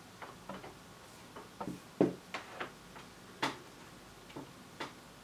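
About a dozen light, irregular clicks and taps from soldering work on a small circuit board held in a helping-hands clamp, as the iron and parts are handled against the board and clamp. The sharpest tap comes about two seconds in, and another strong one about a second and a half later.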